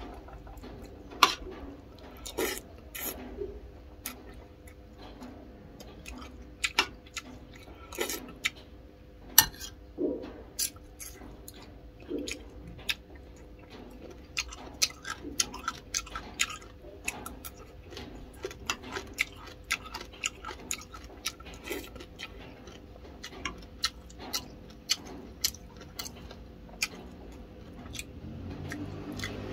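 A metal spoon clinking and scraping against a ceramic bowl and plate in many irregular sharp clicks, with chewing in between, over a faint steady hum.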